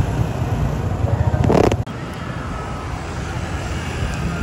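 City street traffic: a steady low rumble of cars and motorbikes, with a louder rushing surge about a second and a half in that cuts off abruptly.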